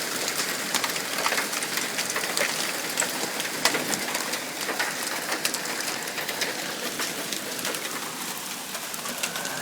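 Hailstorm with heavy rain: a steady dense hiss of falling rain with many sharp, irregular ticks of hailstones striking hard surfaces.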